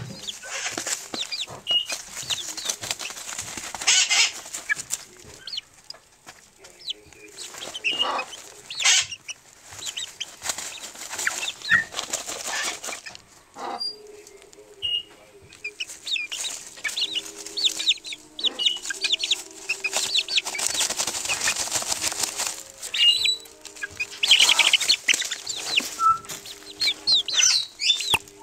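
Hens dust-bathing in chicken feed and newspaper litter: repeated bursts of rustling, scratching and wing-shaking, each lasting a second or two, with soft clucks and short peeps in between.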